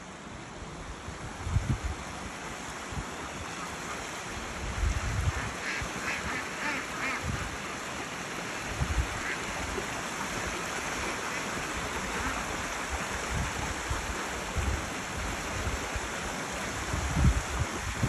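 Small stream rushing steadily over rocks, with a quick run of about six short calls from the domestic waterfowl on the bank about five seconds in. Wind buffets the microphone with low thumps.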